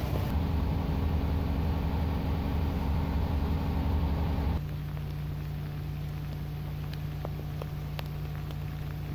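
Sailing yacht's inboard engine running steadily under way. About halfway through, the sound cuts to a quieter steady hum with a few faint ticks.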